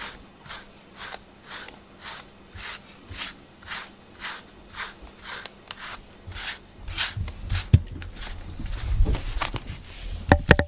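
A slicker brush stroked repeatedly through a cat's fur, about two short brushing strokes a second. Later, low thumps come in, with a couple of sharp clicks near the end.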